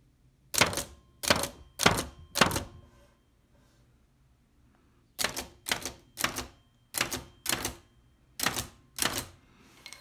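1908 Hammond No. 2 typewriter being typed on, one key at a time: four strikes, a pause of about two seconds, then seven more, each a sharp strike with a short ring-out.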